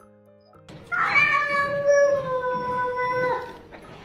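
A cat giving one long, drawn-out meow, starting about a second in, held on a steady pitch for over two seconds and dropping at the end.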